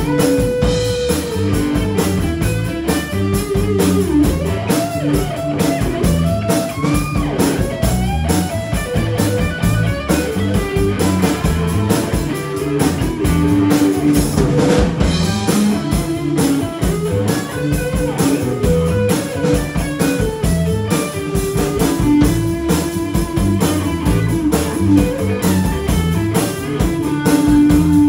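Live band playing an instrumental passage: electric guitar notes over a second guitar and a Ludwig drum kit keeping a steady beat.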